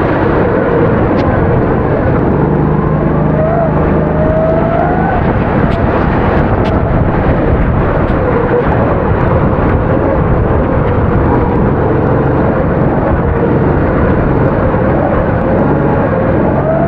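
270cc four-stroke kart engine running hard, its pitch rising and falling as it accelerates and lifts off through corners, over a steady rushing noise.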